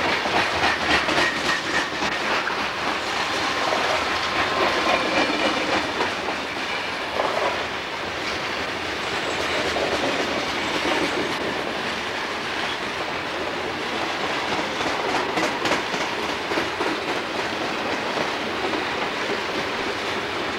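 A Southern Pacific freight train's covered hopper cars rolling past, with a steady rumble of steel wheels on rail and a clickety-clack of wheels over the rail joints.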